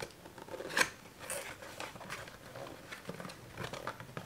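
Cardboard lens box being handled and opened by hand, with a sharp click a little under a second in, then a scrape and scattered light taps and rustles of the paperboard.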